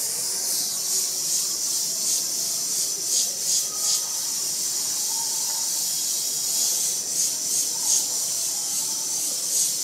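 Airbrush spraying black paint in a steady, high hiss of air that swells briefly again and again as the freehand dagger strokes are laid down.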